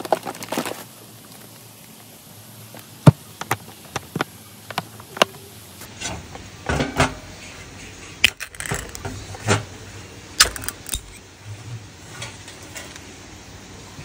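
An aluminium Asahi Super Dry full-open beer can being handled on a stainless steel camp table: a series of sharp metallic clicks and taps as it is set down and its lid is pried up and pulled off, the loudest click about three seconds in.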